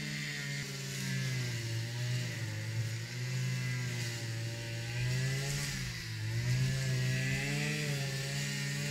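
String trimmer (strimmer) engine running, its pitch wavering up and down with a dip about six seconds in.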